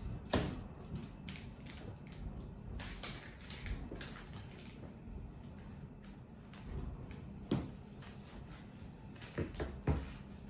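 Kittens scuffling and pouncing on a floor cushion: scattered scratching, rustling and soft knocks at irregular intervals, with sharper knocks just after the start, about three-quarters of the way in, and twice near the end.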